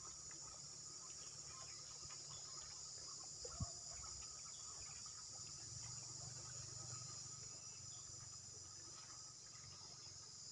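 A faint, steady high-pitched chorus of insects, with a low rumble beneath it. A single brief thump comes about three and a half seconds in.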